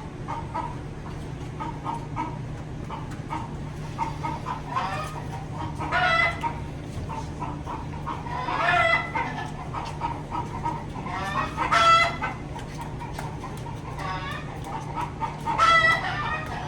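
Chickens clucking steadily, with a rooster crowing four times over a steady low hum.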